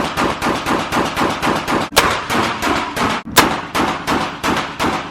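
Rapid pistol fire from a P80-built Glock 26, about three shots a second with a short echoing tail after each, a few shots sharper and louder than the rest.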